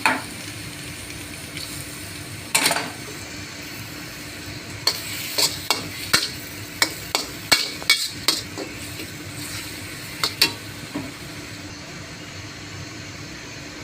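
Seafood sizzling in a hot pan with a steady hiss, while a spatula scrapes and clinks against the pan in short strokes, once early, in a quick run from about five to eight seconds in, and again near ten seconds.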